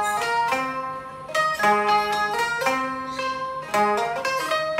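Suzuki Kohaku CHK-1 taishōgoto (fenghuangqin), an electric keyed zither, played through a Creative Sound Blaster Roar portable speaker: a single-note melody of plucked, bright, ringing strings, each note sounding for up to about a second.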